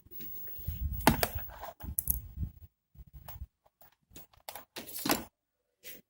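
Irregular clicks, taps and small knocks of tools and parts being handled on a workbench, the loudest about a second in and again around five seconds in.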